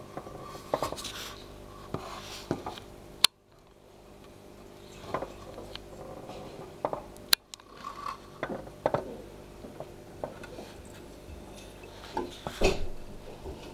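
Irregular small scrapes, taps and knocks against a small plastic keeping case. Two sharp clicks stand out, about three and about seven seconds in, each followed by a moment of near silence.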